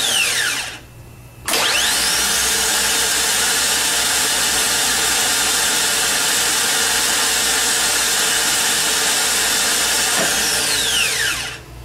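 Harley-Davidson trike reverse motor running on the bench, its Bendix gear thrown out and spinning slowly; it winds down in the first half-second, starts again with a rising whine about a second and a half in, runs steadily, then winds down with a falling whine near the end. This is how the reverse motor sounds when it is working properly.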